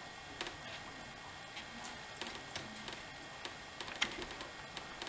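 Irregular light clicks and taps of small plastic and metal chainsaw parts being handled as a fuel line is pushed onto its fitting on a Poulan chainsaw. The sharpest click comes about four seconds in.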